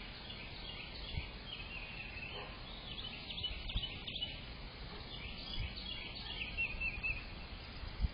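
Small birds chirping in repeated runs of quick, high chirps over a steady background hiss, with a few soft low thumps.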